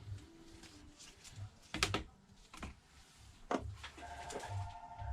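A few sharp clicks and taps of small tools and parts being handled on a repair bench, spread out with pauses, and a faint steady tone joining in near the end.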